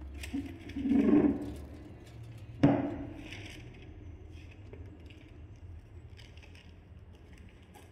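Furniture being handled: a short scraping thud about a second in, then a sharp knock as a board is set down on a chair a little before three seconds, followed by newspaper pages rustling and crinkling.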